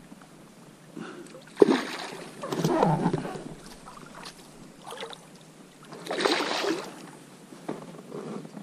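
Water splashing and sloshing beside an inflatable rubber boat in two short bursts, about two and a half and six seconds in, with a sharp knock just before the first.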